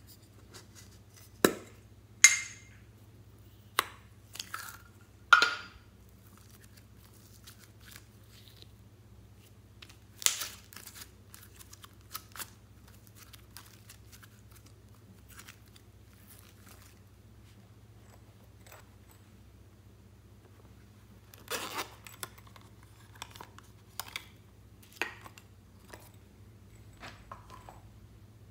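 Sharp clicks, snaps and crinkles of small plastic containers being opened and handled over a tray of slime. Several come in the first six seconds, one around ten seconds in, and a cluster near the end, over a faint steady low hum.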